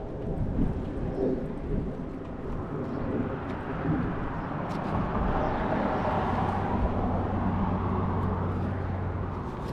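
Outdoor ambience: a passing road vehicle swells and fades over a few seconds, over rumbling wind noise on the microphone. A steady low hum sets in about two-thirds of the way through.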